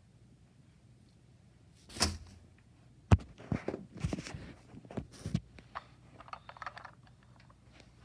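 Handling noise from a phone camera and toys being moved about. A rustle comes about two seconds in, then a sharp click and a string of light knocks and clicks, with a faint rattle near the end.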